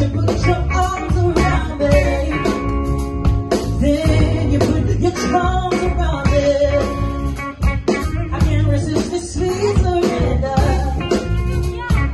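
A live band playing: a woman sings lead over electric guitar, electric bass and a drum kit, with a strong, steady bass line and a regular drum beat.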